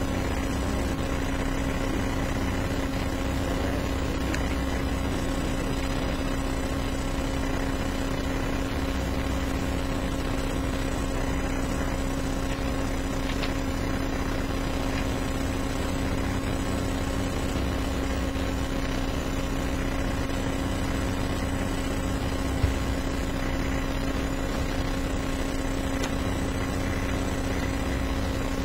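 Steady hum and hiss of courtroom room tone, with one small click about twenty-three seconds in.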